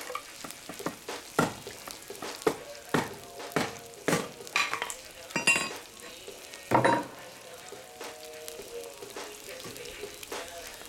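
Meat and onions frying in hot oil in a cast-iron kazan. A steady sizzle runs throughout, with frequent sharp pops and spits of oil that thin out after about seven seconds.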